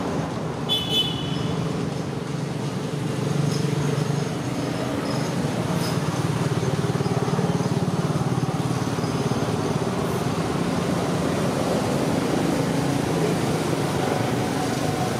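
Steady low rumble of motor vehicle traffic or an engine running. There is a brief high chirp about a second in.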